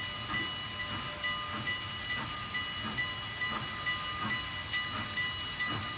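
Steam locomotive chuffing as it approaches, with a steady beat of about two exhaust chuffs a second over a hiss of steam.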